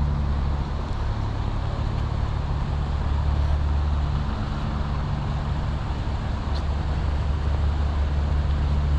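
Steady low engine drone of machinery running at a bridge construction site, with a constant rushing noise over it.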